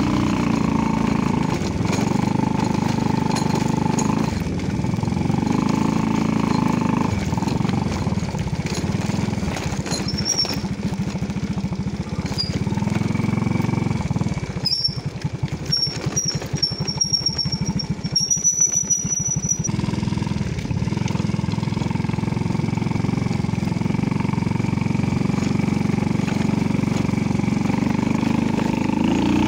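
Small motorcycle engine running steadily while riding a rough dirt road, its pitch rising and falling with the throttle. Around the middle it eases off for a few seconds with a rattling clatter, then picks up again.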